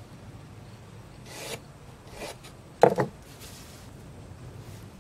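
A wooden board sliding and scraping across a paper template on a table, with two quick, sharp knocks a little under three seconds in.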